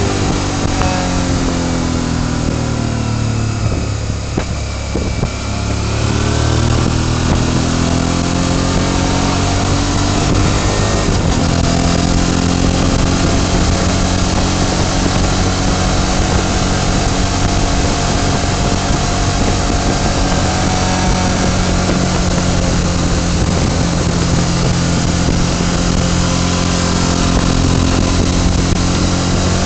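Motorcycle engine heard from the rider's seat, with a steady rush of wind and road noise. The engine note falls over the first few seconds, climbs again and then holds steady at cruising speed.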